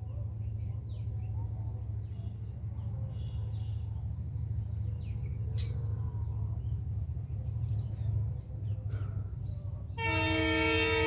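Steady low rumble with a few scattered bird chirps, then about ten seconds in the Kanchanjungha Express's horn starts suddenly and is held: one loud, sustained blast of several notes from the approaching train.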